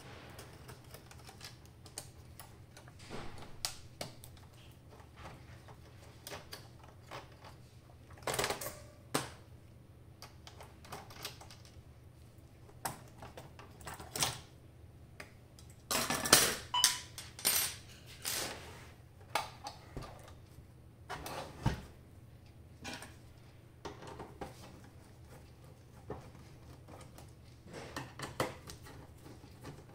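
Hex-key screw removal and taking apart the plastic housing of a Terumo TSCD-II sterile tube welder. Scattered clicks, taps and knocks of tool and screws on plastic and metal, busiest and loudest around the middle.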